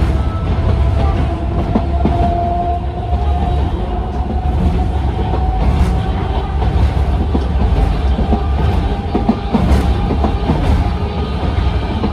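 Interior running noise of a Sangi Railway Hokusei Line Mo 275 electric railcar on 762 mm narrow-gauge track, heard from inside the passenger cabin. A steady low rumble carries irregular clicks of the wheels on the rails, with a faint whine rising slightly in pitch.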